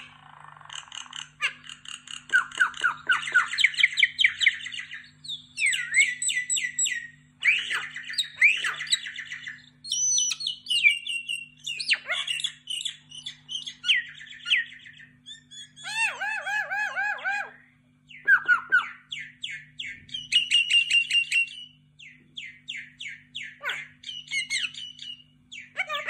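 Common myna singing a long, varied song of rapid clicking chatter, gliding whistles and gurgling notes, in phrases broken by short pauses.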